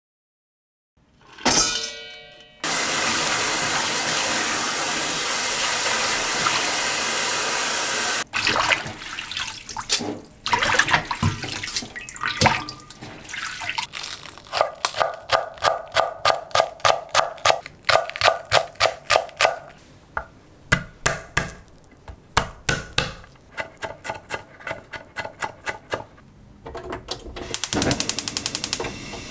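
Tap water running steadily into the sink for about six seconds as bean sprouts are rinsed. Then a chef's knife chops on a wooden cutting board, in a regular run of about three strokes a second while green onion is sliced. Near the end a gas stove's igniter clicks rapidly as the burner knob is turned to medium.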